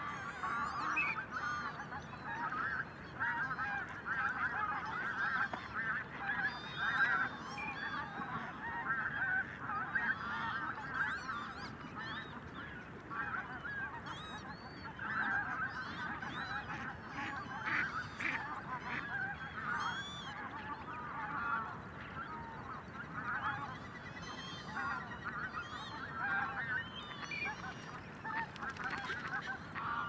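A large flock of geese calling continuously, many overlapping calls at once, with occasional higher, thinner calls above them.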